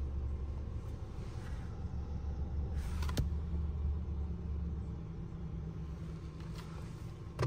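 A steady low rumble throughout, with one sharp click about three seconds in.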